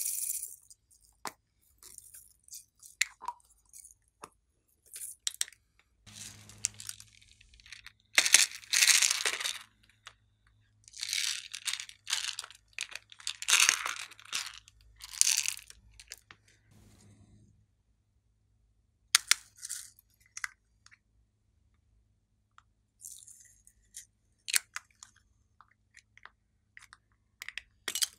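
Plastic toys and containers being handled and opened over a tray of slime: sharp clicks and taps, with a few longer bouts of scratchy crunching in the middle, the loudest about eight to ten seconds in.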